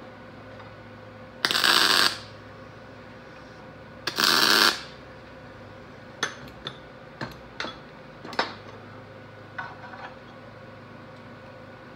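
Two short MIG tack welds on steel tube, each about half a second long and a couple of seconds apart, followed by a series of light metallic clicks and taps.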